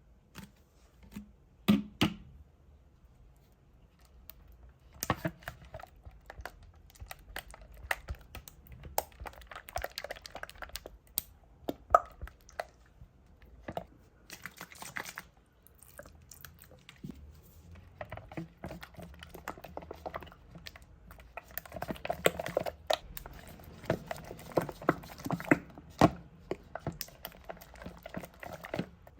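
Slime being mixed and worked: an irregular run of sticky clicks, crackles and squelches, coming in busier stretches with occasional louder snaps.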